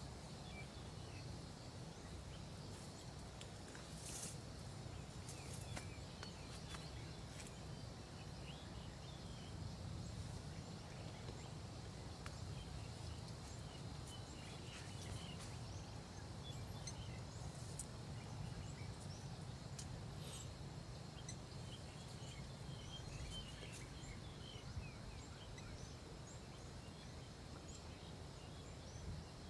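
Faint rural ambience: a steady low rumble and a high hiss, with scattered short bird chirps throughout.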